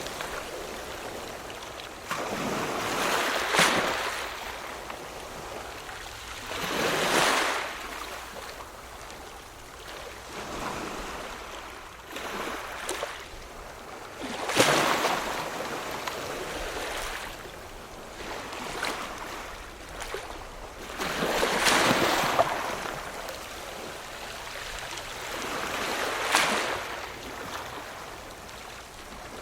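Ocean surf: waves breaking and washing in, a loud surge every few seconds over a steady hiss of moving water.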